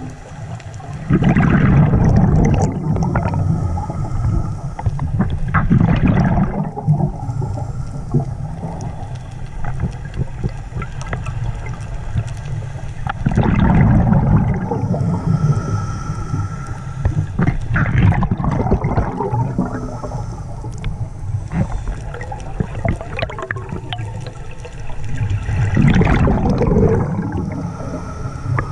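Scuba diver breathing through a regulator, heard underwater: about five loud gurgling rushes of exhaled bubbles several seconds apart, with quieter stretches between.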